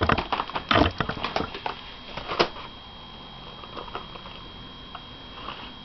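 Flexible rubber keyboard being handled and pressed on top of a laptop: a quick run of soft taps and knocks for about two and a half seconds, then a few faint ticks.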